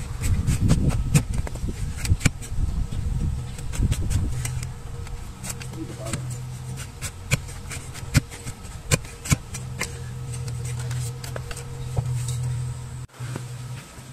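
Large cleaver-like hoof knife cutting through overgrown hoof horn on a wooden stool: irregular sharp cracks and knocks, dense in the first few seconds and sparser after, over a steady low hum.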